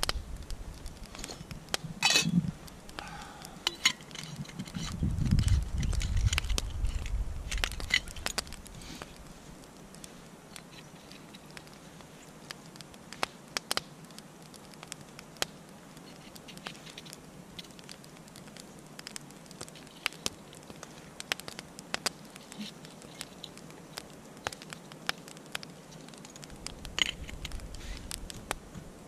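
Wood fire crackling and popping in a small twig stove, with scattered sharp snaps. There is a knock about two seconds in and some low handling noise in the first several seconds.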